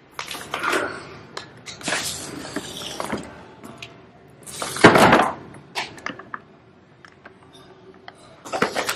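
Plastic packaging and paper grocery bags rustling and crinkling as they are handled, in irregular bursts with short pauses; the loudest rustle comes about five seconds in.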